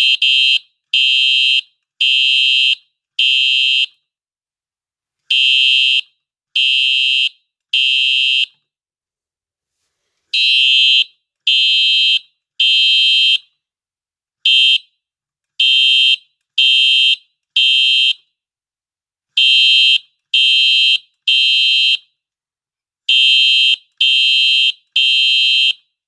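Simplex 4903-9241 fire alarm horn blaring in the code-3 temporal pattern: loud half-second blasts in groups of three, each group followed by a pause of a second or two. At the start the blasts come evenly, about one a second.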